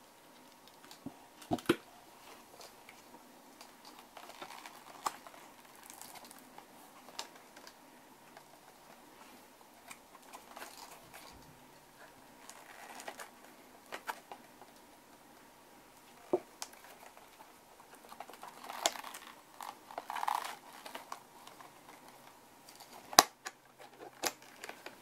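Hand handling of a leather holster and model-gun cartridges: scattered small clicks, taps and leather rustling. The loudest is a sharp click near the end, as the holster flap is fastened on its brass stud.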